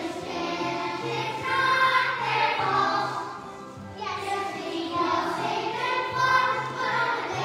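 Children's voices singing a song together with musical accompaniment.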